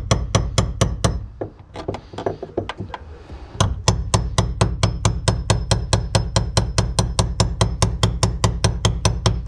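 Rapid hammer blows on a tool set against the teeth of a fuel pump lock ring, driving the ring counterclockwise to loosen it. The strikes are uneven at first, then settle into a steady four or five a second.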